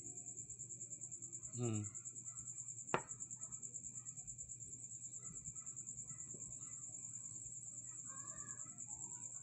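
Steady, high, pulsing trill of crickets, with one sharp click about three seconds in.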